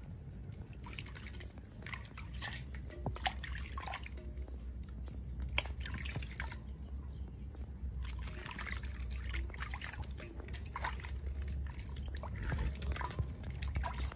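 Water splashing and dripping in a steel basin as hands scoop it over a newborn monkey being bathed, in short irregular bursts, with a low steady hum underneath.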